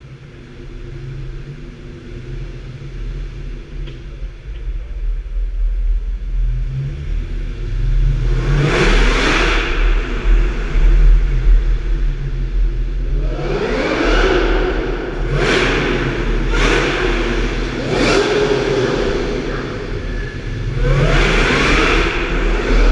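Supercharged Ford SVT Mustang Cobra V8 engines idling with a low rumble, then revved hard about six times. The first rev comes about eight seconds in, and a run of quick revs follows in the second half, each rising and falling back.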